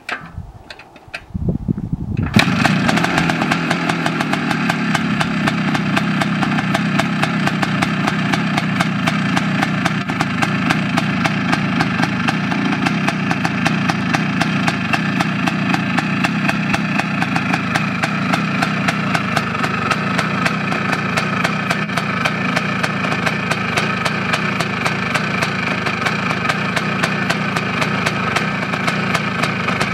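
1974 Husqvarna WR 400's single-cylinder two-stroke engine being kick-started. A few short kicks come first, it catches about two seconds in, and then it runs steadily at idle with a rapid, even beat of firing strokes.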